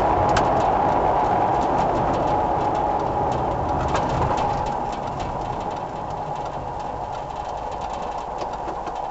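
Car driving noise from the engine and road, picked up inside the cabin by a dashboard camera, fading steadily as the car slows, with scattered light ticks and clicks.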